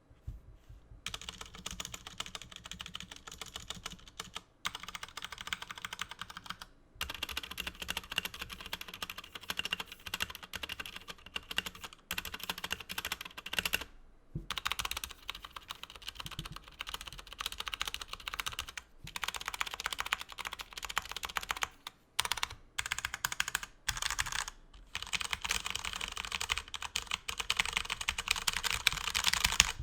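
Typing on a Cooler Master MK730 mechanical keyboard with Cherry MX Brown switches: quick runs of key clicks and clacks, broken by short pauses.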